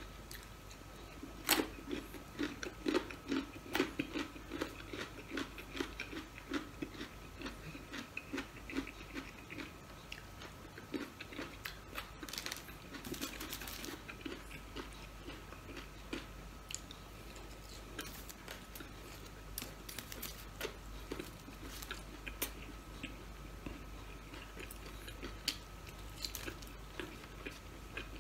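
Close-miked chewing and biting of French fries, with crunches and mouth clicks. The chewing is steady and rhythmic for roughly the first ten seconds, then more scattered.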